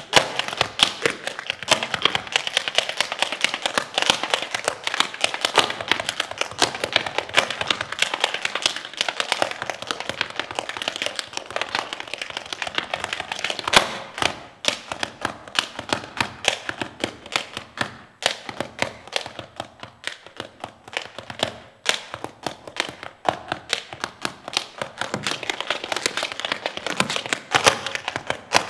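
One dancer's tap shoes striking the stage floor in fast, dense rhythms, with a single louder stamp about halfway through, after which the taps come sparser and more spaced out.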